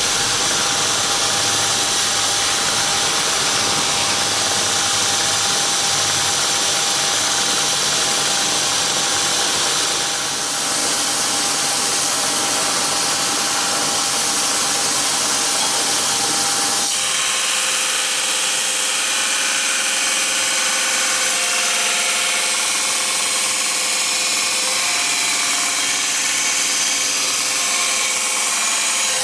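Homemade belt grinder running steadily, its motor and abrasive belt giving a loud, even whirr with a steady tone. About seventeen seconds in the sound changes: the low rumble drops away and several higher steady tones come in.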